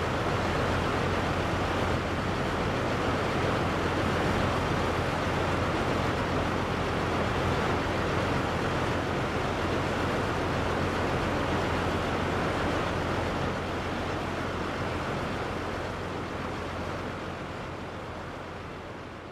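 Steady rushing roar of Niagara Falls carrying through the gorge, slowly fading away over the second half.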